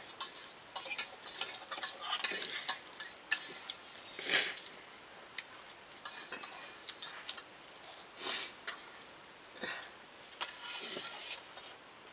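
Cutlery scraping and clinking against dishes while someone eats: irregular short scrapes and clicks, with a longer, louder scrape about four seconds in and another a little after eight seconds.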